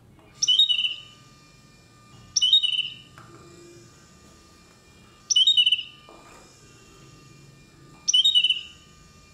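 Recorded bulbul tweet played by a LEGO Spike Essential bird robot's program: four short, high twittering chirps, each falling in pitch, repeated every two to three seconds as a hand moves in front of the model's colour sensor. A faint steady high whine runs underneath.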